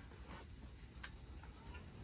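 Quiet ambience with a low steady rumble and a few faint isolated clicks, the sharpest about a second in.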